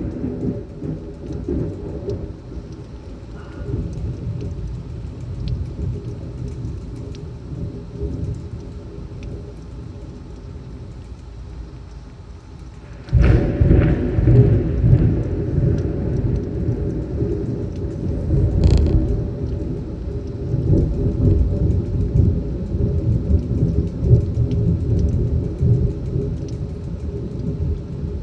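Severe thunderstorm: torrential rain and gusting wind with rumbling thunder. About halfway through it suddenly gets much louder and stays loud, with a sharp crack a few seconds later.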